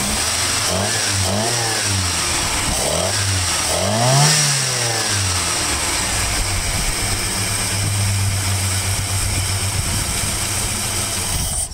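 1983 Ford Ranger's carbureted engine revved up and down in several short blips, the biggest about four seconds in, then settling to a steady idle. The seller says it runs rich, which he puts down to the carburetor or a valve.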